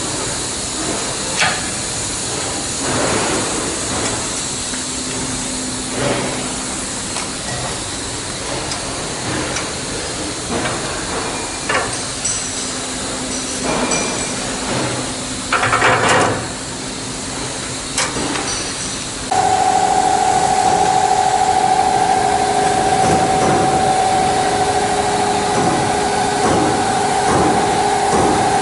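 Packaging machinery operating: a steady hiss with scattered clicks and knocks. About two-thirds of the way through, a machine starts up with a steady whine and runs on, louder.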